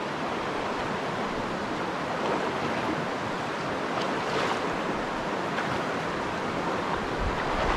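Steady rush of a mountain stream running over rocks into a pool.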